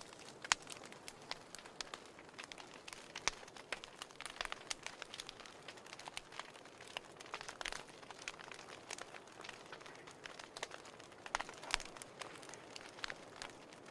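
Wood fire burning in a fireplace: irregular sharp crackles and pops over a soft steady hiss, a few louder pops about half a second in, about three seconds in and near the end.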